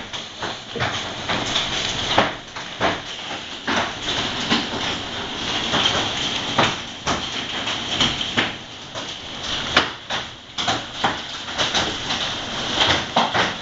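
Hail coming down hard: a constant rushing hiss with irregular sharp knocks of hailstones hitting hard surfaces.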